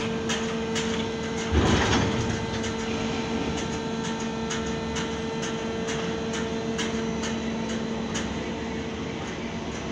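Ship-to-shore gantry crane lifting a ship's hatch cover on its container spreader, with a steady machinery hum and repeated short clicks. A louder clank comes about one and a half seconds in.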